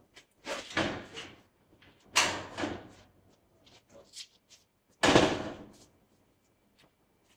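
Steel mesh gate clattering as it is pushed open and swung shut: three crashes a couple of seconds apart, the last and loudest about five seconds in.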